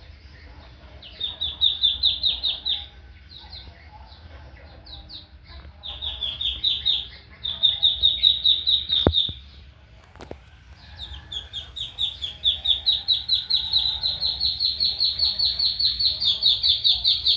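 Duckling peeping: rapid runs of short, high peeps, about five a second, coming in bouts and then without a break over the last six seconds. Two sharp clicks sound about nine and ten seconds in.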